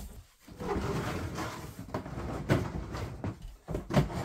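Cardboard box being handled and moved away, scraping and rustling, with two sharp knocks about two and a half and four seconds in.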